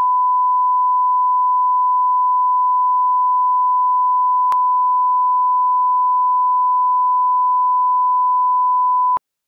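Steady 1 kHz reference test tone, the standard line-up tone that goes with colour bars, with a brief click about halfway through; it cuts off abruptly near the end.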